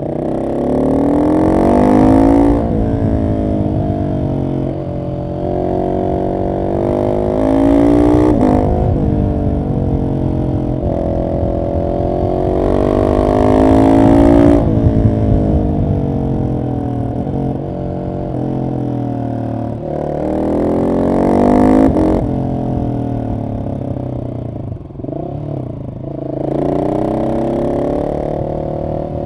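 Husqvarna 701 SM's single-cylinder engine through an Arrow decat exhaust, pulling hard and climbing in pitch about five times, then falling back as the throttle closes between runs.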